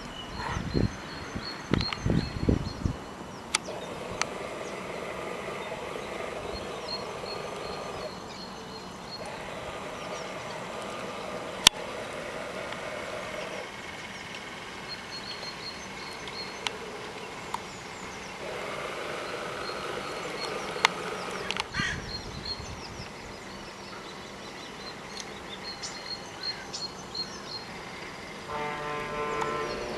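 Lakeside outdoor ambience: birds calling in short, repeated high chirps over a steady background hiss. Wind gusts buffet the microphone in the first few seconds. A louder run of pitched calls, like a duck quacking, comes near the end.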